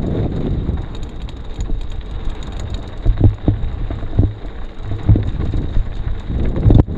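Wind buffeting the microphone while moving at speed, a rough, low roar, with about five sharp knocks and rattles from the second half on, as from bumps over rough ground.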